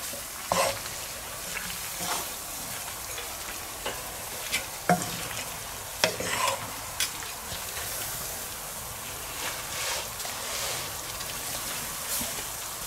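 Mixed vegetables in broth sizzling in a cast-iron skillet over charcoal, stirred with a wooden spatula: a steady sizzling hiss with scattered knocks and scrapes of the spatula against the pan.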